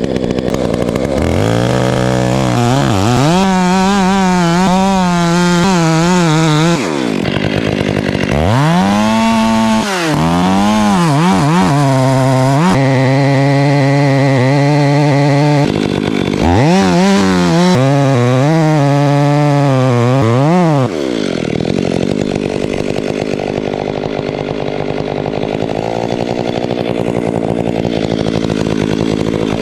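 Stihl chainsaw at full throttle cutting into a black oak trunk in three long bursts, its pitch rising and sagging as the chain bites into the wood. About 21 seconds in the high revving stops and a lower, steadier engine sound carries on.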